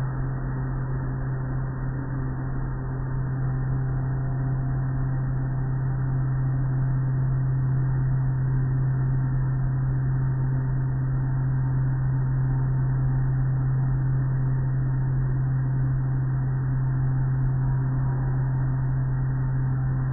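Automatic car wash machinery running: a strong, steady low hum with an even wash of spray and cloth-curtain noise over it.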